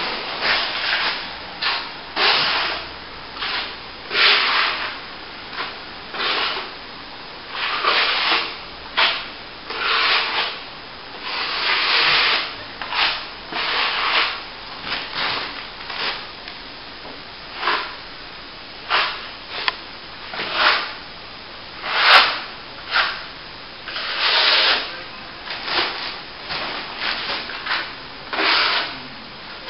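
Plastering trowel worked over a wet top coat of plaster on plasterboard in short scraping strokes, about one a second at an uneven pace.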